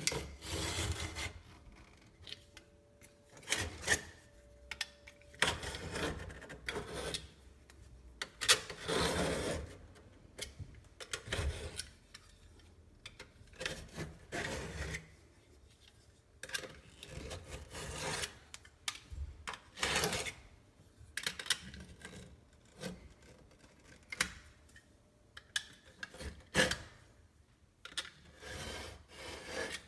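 Irregular scraping and rubbing in short strokes, with a few sharp knocks, from hand work on the sink.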